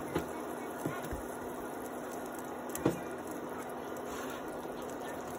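A plastic ladle stirring soup in a metal pot, knocking against the pot a few times, most sharply about three seconds in, over the steady hum of an induction cooktop.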